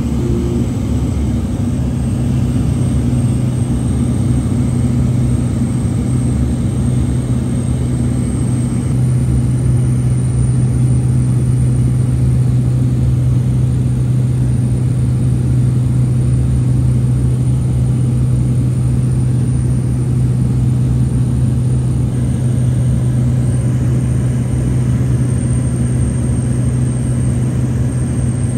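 Cessna Caravan's PT6A turboprop engine and propeller droning steadily, heard from inside the cabin in cruise, with a strong low hum and a thin high whine. The drone gets slightly louder about nine seconds in.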